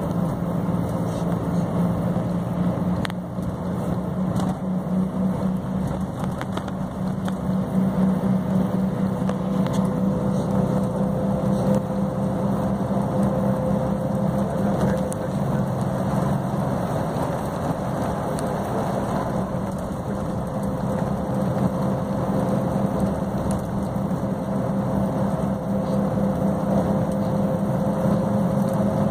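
Steady engine drone and road noise of a moving road vehicle, heard from inside the cabin. A faint whine slowly rises in pitch over the second half.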